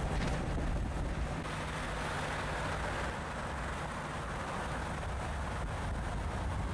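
Steady rush of wind and road noise heard from inside a car cruising at highway speed.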